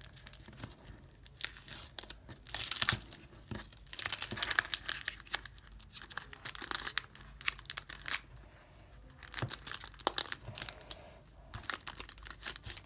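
Irregular scraping and crinkling from homemade nail-stamping tools in use: a scraper worked over a stamping plate and a stamper whose head is wrapped in plastic.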